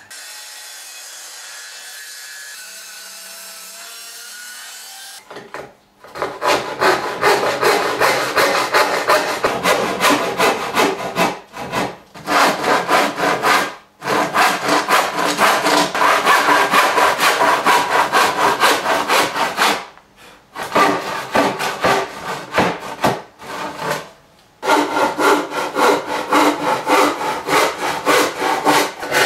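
Hand saw ripping a softwood board lengthwise: quick, regular push-and-pull strokes start about five seconds in and run on with a few brief pauses. Before the sawing there is a steady, even background noise.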